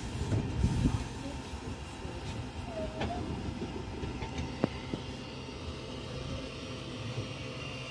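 Narrow-gauge steam locomotive moving slowly tender-first, a low rumble that is loudest in the first second. There is a short squeal about three seconds in and a sharp click just before five seconds.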